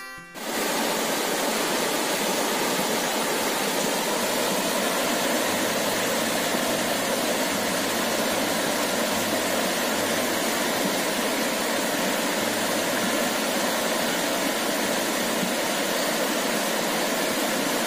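Shallow rocky stream rushing over boulders in small rapids: a steady, even rush of water that cuts in abruptly about half a second in.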